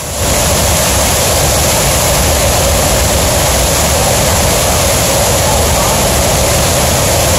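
Loud, steady roar of Niagara's Horseshoe Falls, the curtain of water crashing down just outside the mouth of a rock tunnel behind the falls, an unbroken rush from deep rumble to hiss.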